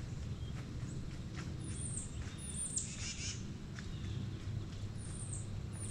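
Wild birds calling outdoors: a run of short, high notes that slide downward, with a few lower chirps, over a steady low background rumble.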